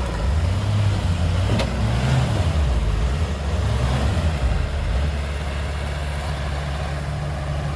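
Heavy diesel engine working under load, its note rising and falling for the first few seconds, then settling into a steady idle.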